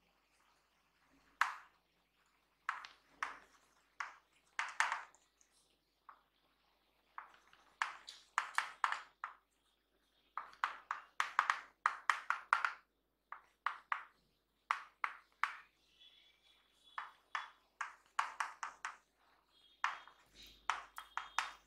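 Chalk writing on a chalkboard: clusters of short taps and scrapes, one for each stroke of the letters, with brief pauses between words.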